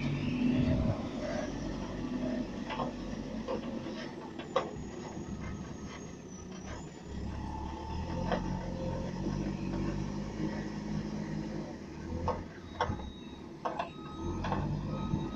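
JCB 3CX backhoe loader's diesel engine running, its engine speed rising and falling as it works, with scattered sharp clanks as the loader bucket handles dirt at the dump truck.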